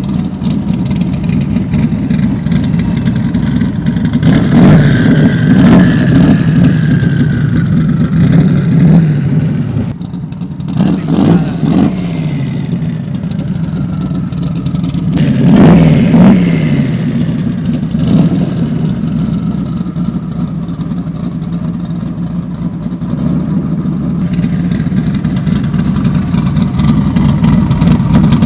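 Performance car engine idling loudly, with several quick throttle blips that rise sharply and drop back, most of them in the first half.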